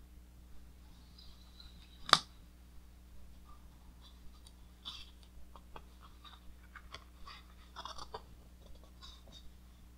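Pages of a large hardcover book being handled and turned: paper rustling in small irregular crackles, densest as a page is turned near the end, with one sharp click about two seconds in.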